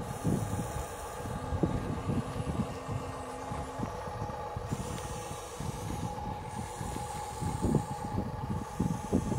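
Plastic toy dump truck's wheels rolling and scraping over sand as it is pulled along by a string, an uneven low rumble.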